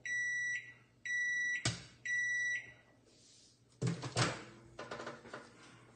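Microwave oven beeping three times, about once a second, each beep a half-second high tone, signalling that the cooking has finished. A sharp click follows, and about four seconds in, a clatter of clicks as the microwave door is pulled open.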